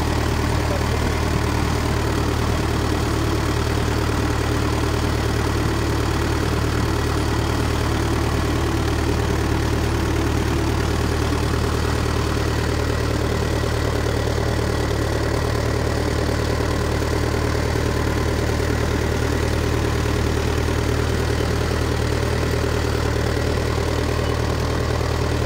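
Farm tractor's diesel engine running steadily, a constant low drone heard close up.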